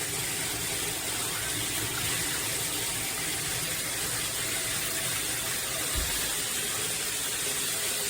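Shower head spraying water with a steady, even hiss, and a brief low bump about six seconds in.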